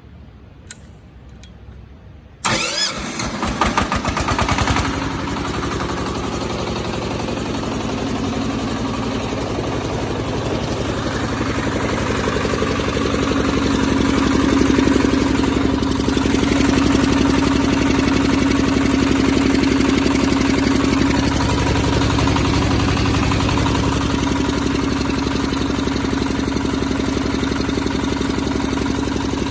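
Single-cylinder diesel engine of a concrete pump starting suddenly about two seconds in, with the throttle set slightly open, then running steadily.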